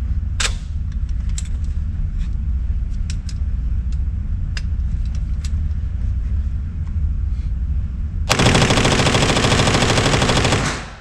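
PTR MP5-clone 9mm submachine gun firing one long full-auto burst, emptying its 30-round magazine in about two and a half seconds, starting about eight seconds in. Before the burst there is only a low steady rumble with a few scattered sharp clicks.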